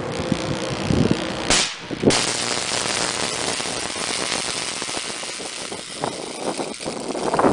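The contacts of a high-voltage substation disconnect switch closing: a sharp crack about a second and a half in, then a steady hiss that starts abruptly a moment later, the sound of arcing across the switch contacts.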